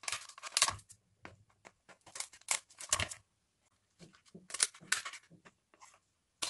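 Kitchen shears snipping and crunching through the spiny shell of cooked king crab legs, in short irregular bursts of cracking shell.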